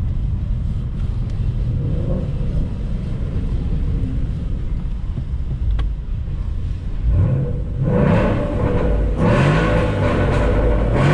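Ford Mustang GT's 5.0 V8 heard from inside the cabin, rumbling steadily at low revs, then from about seven seconds in getting louder as it revs up, the pitch climbing several times in quick succession under hard acceleration.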